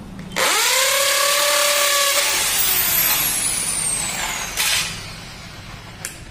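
Corded electric drill starting about half a second in, its motor whine rising then holding steady as it bores a hole through a high-security number plate, turning rougher and noisier before winding down with a falling whine. A short second burst of the drill comes near the end.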